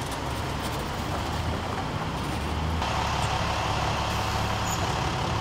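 A heavy vehicle's engine running steadily with a low hum. A broader rushing noise comes in abruptly a little under three seconds in.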